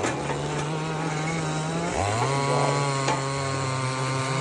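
Chainsaw engine running at high speed with a steady note; about two seconds in the pitch dips sharply, then climbs back and holds a slightly lower steady note.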